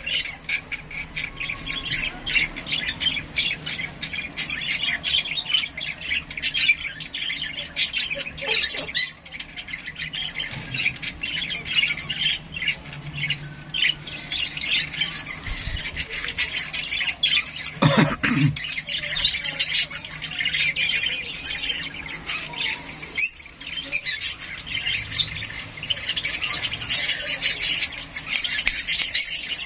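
Young lovebird chick giving a fast, unbroken stream of short, harsh begging squawks while being hand-fed from a syringe.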